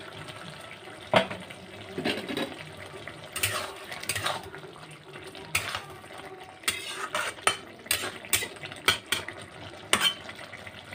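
Aluminium pot lid knocking as it is lifted off, about a second in, then a metal spatula scraping and knocking against the aluminium pot in short irregular strokes as a chicken and potato curry, cooked down nearly dry, is stirred.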